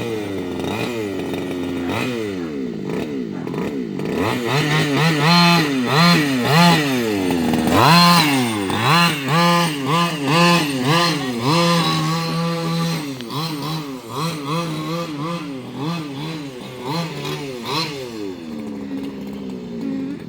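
Small two-stroke weedwacker engine in a gas-powered RC car, revving up and down over and over as the throttle is blipped, about once or twice a second, loudest in the middle.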